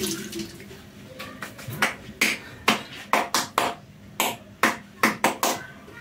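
Running water fades out about a second in. After it comes a string of a dozen or so short, sharp kitchen clicks and knocks at uneven spacing, as utensils, a bowl and a sandwich toaster are handled on the counter.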